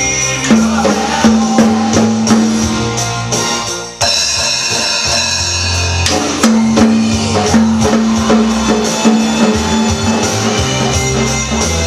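A recorded rock song with sustained horn-like chords, a bass line and a steady beat, with a child's toy drum kit being banged along on toms and cymbal. The band briefly hits a high chord about four seconds in.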